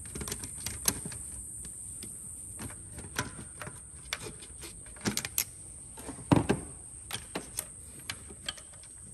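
Irregular clicks and knocks of pliers and a rubber coolant hose being worked against metal engine parts at the throttle body, with a heavier knock a little past the middle. Under it runs a steady high-pitched insect buzz.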